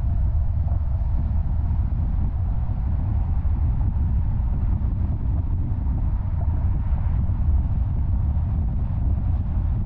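Car driving at highway speed: a steady low rumble of tyres on the road and the engine.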